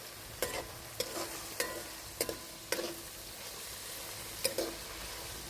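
Canned apples sizzling as they fry in coconut oil, with a utensil knocking against the pan about six times as they are stirred.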